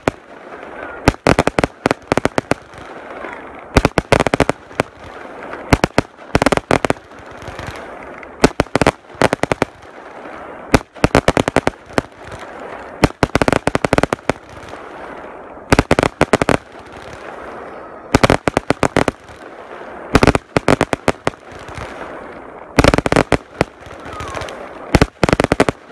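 Aerial fireworks bursting overhead: clusters of sharp bangs and crackles, a new volley about every one to two seconds.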